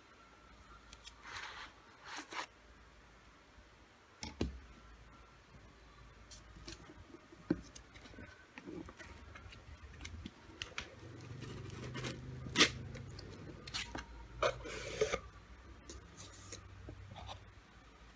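Packaging being handled and opened: scattered clicks, scrapes and short rustles, the sharpest click about twelve and a half seconds in.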